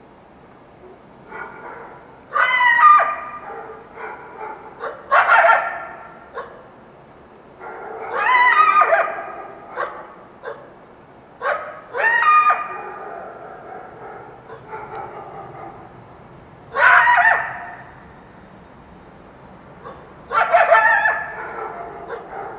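Wild coyote yelping: six loud bouts of high yelps with wavering pitch, each about a second long and a few seconds apart, with fainter yelps between them.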